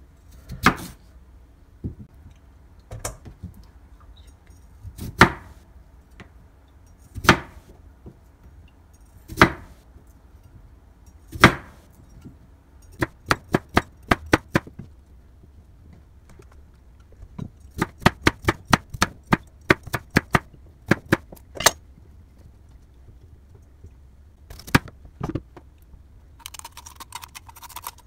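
Chef's knife chopping through a firm peeled vegetable onto a wooden cutting board: single sharp knocks about every two seconds at first, then quicker runs of chops in the middle. A soft rustle near the end.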